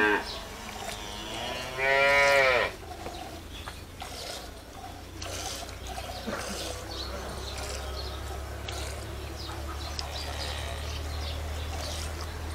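Cow mooing: one short, loud call about two seconds in, with the end of an earlier moo at the very start. A low steady hum runs underneath from about three seconds on.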